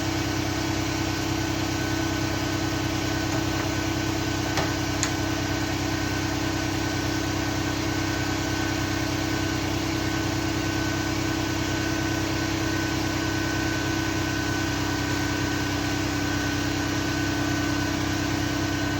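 A machine running steadily: a constant engine-like drone with a steady hum and a higher whine, and a couple of light clicks about four and a half seconds in.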